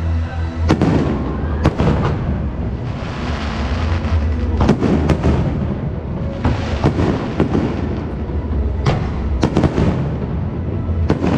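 Aerial fireworks display: irregular sharp bangs of shells bursting, a dozen or so, some in quick clusters, with crackling and hissing between them and a steady low hum underneath.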